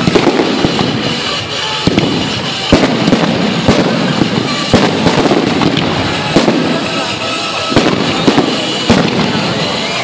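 Fireworks display: aerial shells bursting one after another, sharp bangs every fraction of a second over a continuous dense crackle.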